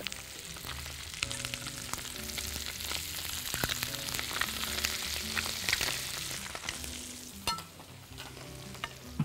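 Chicken leg quarters sizzling in hot butter in a frying pan, just laid in skin-side down. The hiss swells in the middle and dies down near the end, with a few light clicks.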